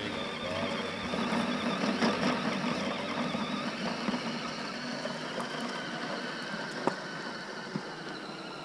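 Electric motor and gearbox of an RC rock crawler whirring as it drives, with a sharp click about seven seconds in.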